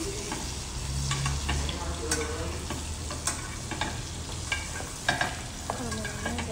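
Salmon fillet sizzling as it fries in melted butter in a pan, with a metal spoon clinking and scraping against the pan now and then as the butter is spooned over the fish.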